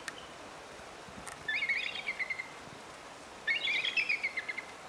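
Two short, high chirping calls, each about a second long and roughly two seconds apart, falling in pitch and ending on a held note.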